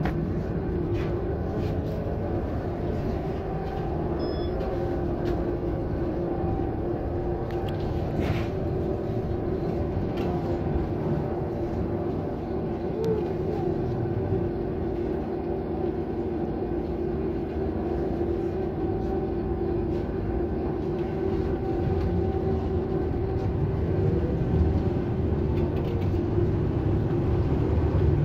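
Trolza Megapolis trolleybus heard from inside the passenger cabin while driving: a steady hum from the electric drive with a held tone, over continuous road rumble. It grows a little louder near the end.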